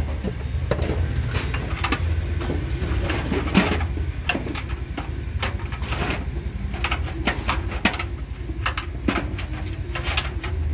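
Irregular metallic clicks and knocks of a spanner on the steel mounting bolts of a diesel engine's base frame, as the bolts are fitted and tightened. A steady low rumble runs underneath.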